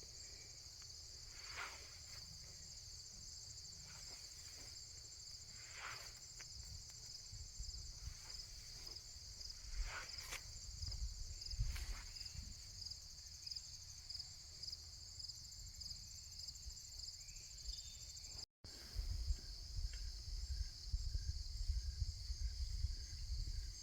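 Crickets chirping in a steady, fast-pulsing high chorus, with a few faint taps and low rumbling noise on the microphone, which grows stronger in the last few seconds.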